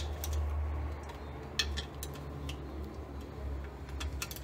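Irregular light metallic clicks and clinks of a socket wrench and extension working bolts on the side of a diesel engine's cylinder head, a few scattered ticks with a short cluster near the end, over a steady low hum.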